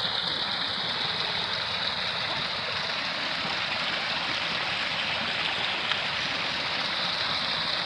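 Running water of a mountain stream, a steady rushing.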